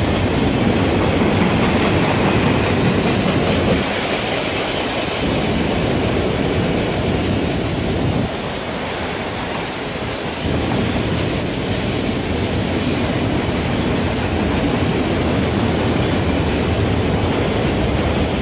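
Autorack freight cars rolling past: a steady, loud rumble and clatter of steel wheels on the rails.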